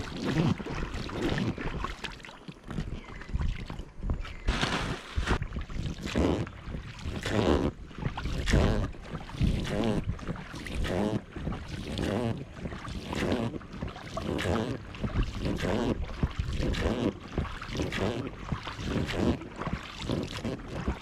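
Rowing strokes splashing in the water about once a second, driving a small inflatable boat along.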